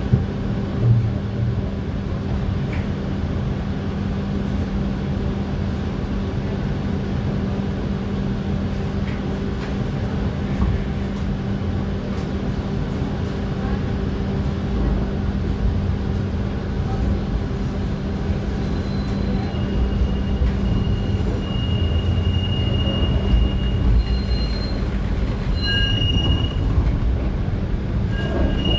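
TTC streetcar running, with a steady low hum and rumble. From about two-thirds of the way in, thin high-pitched wheel squeal comes and goes as the streetcar reaches Gunns Loop, the usual sign of steel wheels grinding on the rails of a tight curve.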